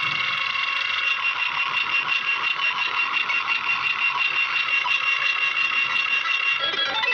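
Black MIDI playback through a software soundfont synthesizer: a dense wall of many simultaneous synthesized notes forming a steady cluster of high held tones. Lower, busier notes join about six and a half seconds in.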